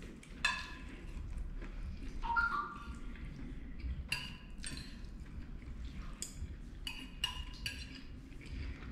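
Metal fork clinking and scraping on a ceramic dinner plate while picking up food: a string of light, irregular clinks, each with a short ring, coming closer together in the second half.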